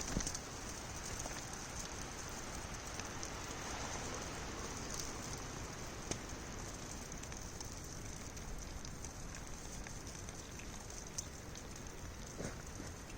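Bacon and egg frying in a pan over a campfire: a steady sizzle with small scattered pops and crackles.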